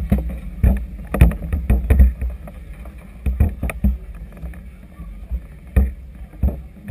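Wind rumbling on the camera microphone, broken by about nine irregular sharp knocks and thuds, the loudest about a second and two seconds in.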